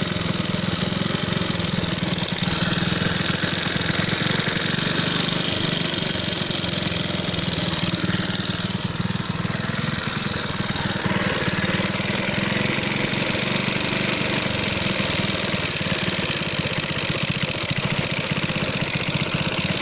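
Alpha moped's four-stroke single-cylinder engine running with a rapid, hard knock, heard close up. The owner puts it down mostly to a piston striking a valve after riding low on oil, and also suspects a bent part letting the flywheel magnet rub.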